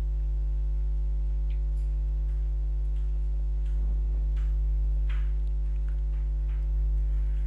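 Steady electrical mains hum on the recording, with a few faint, scattered clicks of computer keys.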